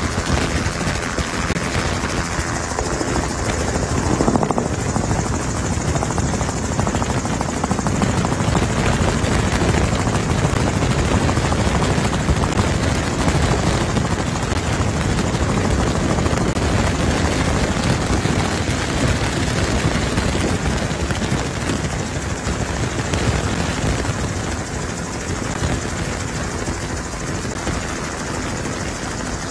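Helicopter rotor and engine noise, a steady loud drone with a rapid chop, heard from the aircraft carrying the camera.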